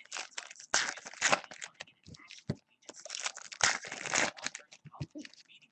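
Foil trading-card pack wrappers crinkling and tearing as packs are ripped open and handled. The rustling comes in irregular bursts, loudest about a second in and again from about three to four seconds in.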